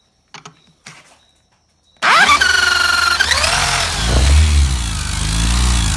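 Yamaha XTZ 125 single-cylinder engine turned over through its crankshaft with a rigged tool, after two short clicks, and starting suddenly about two seconds in; it revs up, drops back and keeps running loudly. The engine has a very loud noise whose cause has not been found even after the head and camshaft bearings were checked.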